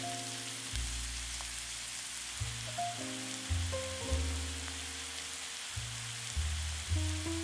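Diced onion sizzling in hot oil in a non-stick frying pan, a steady hiss, with background music and a bass line over it.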